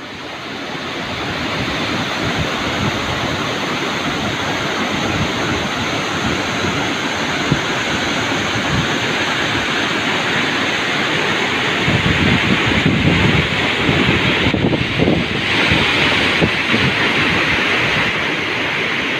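Steady, loud rushing of a waterfall, fading in over the first second or two, with heavier low rumbling gusts from about twelve seconds in.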